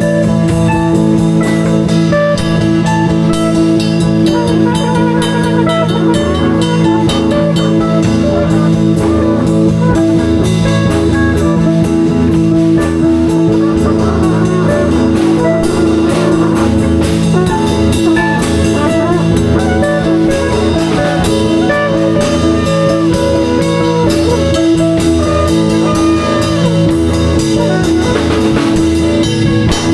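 Live band improvising: electric guitar playing over a drum kit with a sustained bass line, steady and loud throughout.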